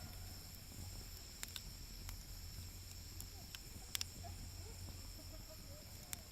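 Wood fire crackling, with half a dozen sharp pops spread unevenly, the loudest about four seconds in, over a steady low hum.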